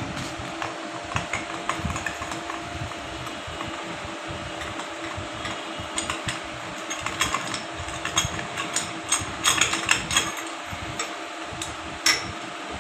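Metal clicks and clinks of a box spanner being worked on a Royal Enfield Bullet's cylinder head, with a cluster of quick clicks about nine to ten seconds in and one sharp click near the end. A steady hum runs underneath.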